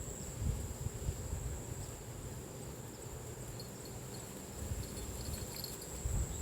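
Insects, crickets among them, droning steadily at one high pitch, with scattered low bumps and rumble beneath.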